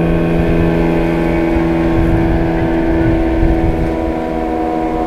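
Engine of a small motorboat running at speed as it passes, a steady drone that gets slightly quieter after about four seconds as the boat moves away.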